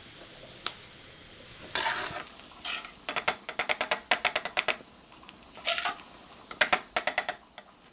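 A metal slotted skimmer scrapes through hot oil in a frying pan, scooping out fried grated coconut. Twice it rattles against the pan in quick runs of sharp clicks, about eight a second.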